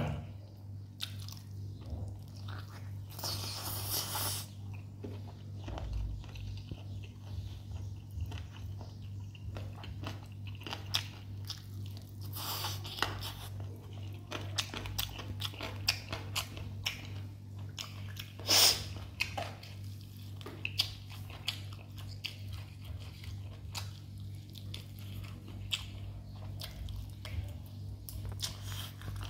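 Close-miked chewing of a mouthful of rice and chicken eaten by hand: wet smacking and small crunches, with many quick clicks of the mouth over a steady low hum. A few short, louder hissy bursts stand out, the loudest about two thirds of the way through.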